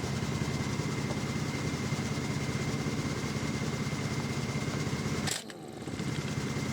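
Harbor Freight Earthquake 1-inch pneumatic impact wrench running with a fast mechanical rattle and a thin steady whine, its air motor spinning freely again after reassembly with its seized rotor vanes freed. The trigger lets off briefly about five seconds in, then the wrench runs again.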